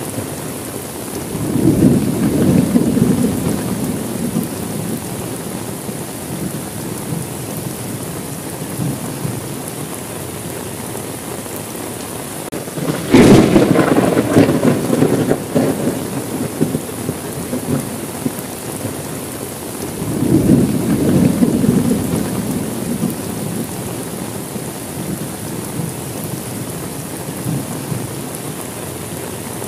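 Steady heavy rain with thunder rumbling three times. The loudest peal, about halfway through, begins with a sudden sharp crack before rolling away.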